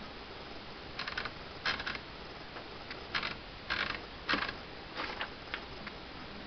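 Remington Quiet-Riter Miracle Tab portable manual typewriter being worked by hand: about ten irregular mechanical clacks and short rattles, starting about a second in and stopping near the end, some of them in quick doubles.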